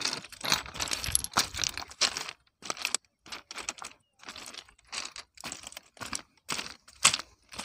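Irregular crunching and clicking of loose ballast stones, as feet shift on the gravel beside the rail. The crunches come thick in the first couple of seconds, then scattered, with one sharp click about seven seconds in.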